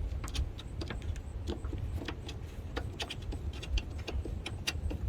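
Irregular light clicks and taps of small metal parts handled by hand: a loosened bolt being turned out with the fingers from the stock hood latch bracket of a Jeep Wrangler JK.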